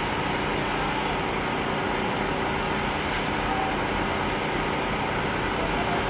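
Steady rumbling drone of a giant container ship passing close at harbour-entry speed, with a few faint short chirps over it.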